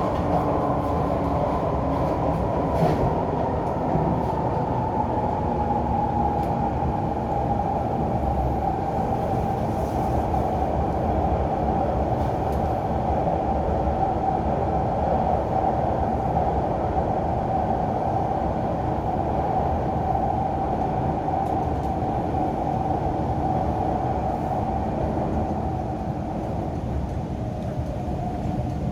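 MTR Kwun Tong Line Q-Train (Hyundai Rotem metro train) running between stations, heard from inside the car: a steady rumble of wheels and running gear with a motor whine whose pitch sinks slowly.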